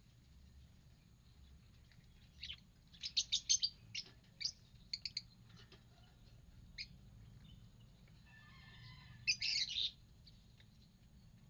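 Lovebirds chirping: a run of short, sharp, high chirps starting a couple of seconds in, a lone chirp a little later, and a quick burst of rapid chirping near the end.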